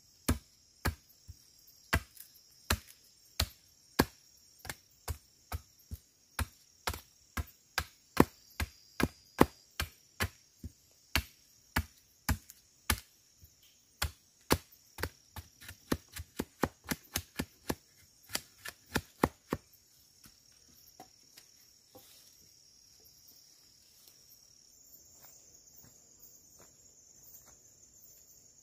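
Repeated sharp strikes of a blade chopping wood, about one or two a second, coming faster from about fourteen seconds in and stopping at about twenty seconds. A steady high-pitched insect chorus runs underneath throughout.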